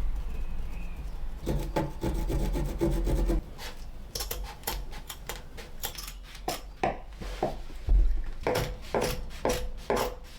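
A hand tool working wood in quick back-and-forth strokes, rasping against the wood. The strokes come faster from about four seconds in, with a few short squeaks near the end.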